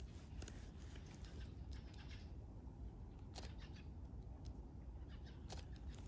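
Shutter of a Fujifilm X-T4 mirrorless camera clicking a few separate times, a couple of seconds apart, over a low steady rumble.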